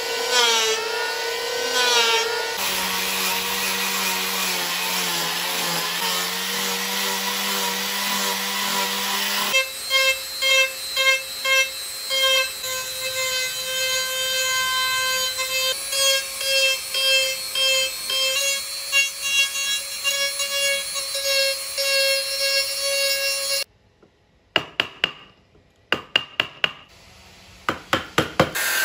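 Handheld power tools running against wood: an electric belt sander, then a rotary tool whining and pulsing as it is pressed into the wood. After a short quiet gap, a hammer strikes a chisel in a series of sharp blows.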